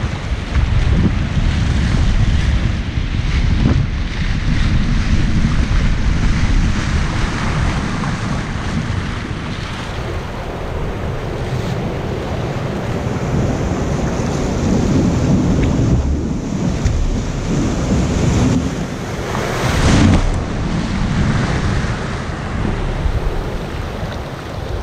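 Breaking surf and whitewater rushing around a kayak paddled through the surf zone, heard close up with wind buffeting the microphone. A sudden louder surge comes about twenty seconds in.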